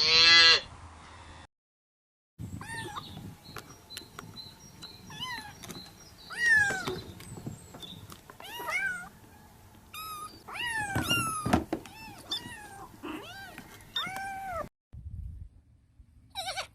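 A domestic cat meowing repeatedly, about eight or nine separate meows that each rise and fall in pitch, with short pauses between them.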